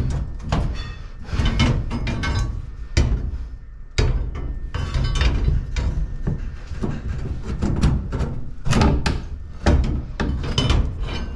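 Irregular knocks and thumps, many in quick succession.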